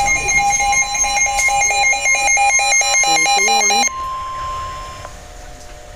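Weather radio sounding a tornado-warning alert: a steady high alarm tone under fast repeating electronic beeps. The beeps stop about four seconds in, and the tone stops about a second later.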